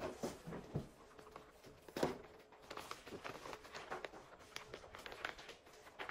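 Frosted plastic zip-lock bag rustling and crinkling as it is handled on a paper-covered table, with a sharper knock about two seconds in as it is set down.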